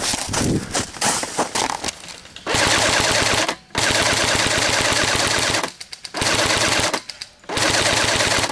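JG G3 electric airsoft rifle firing on full auto: four bursts of one to two seconds with short pauses between them, a rapid even rattle from the gearbox cycling. Before the first burst there are about two seconds of irregular knocks and rustling.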